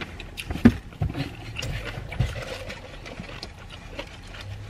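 Close-up chewing and mouth sounds of someone eating a chicken wing, with a few short sharp clicks, over a low steady hum inside a car.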